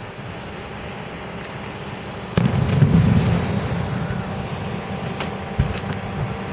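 Aerial fireworks shells bursting. There is a sharp boom about two and a half seconds in, followed by a rolling low rumble and echo, and a few smaller cracks near the end over a continuous distant rumble.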